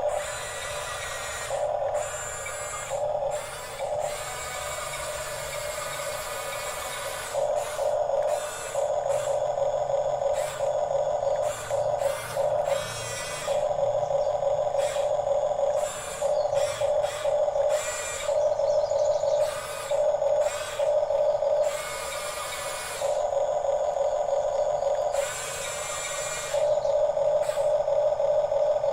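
Electric drive motors and gearboxes of a Huina 1554 RC bulldozer whining in repeated stop-start bursts as it is driven, each burst held at one pitch, with a rattle of plastic parts.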